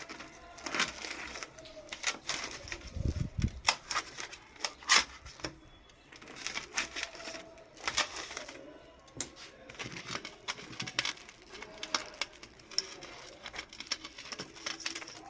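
Knife cutting through crisp deep-fried bread pakoras: a run of sharp crackles and crunches from the fried gram-flour crust, with a dull thump about three seconds in.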